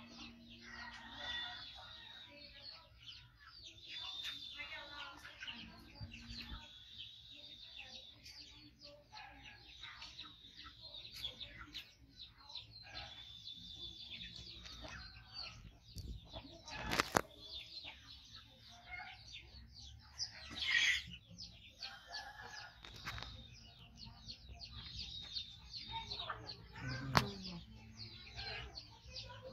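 Chickens clucking with small birds chirping in the background, broken by a sharp click about seventeen seconds in and another near the end.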